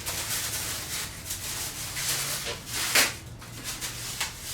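Packaging being handled while a metal tool cart is unboxed: rubbing and scraping of cardboard and foam, with one sharp knock about three seconds in.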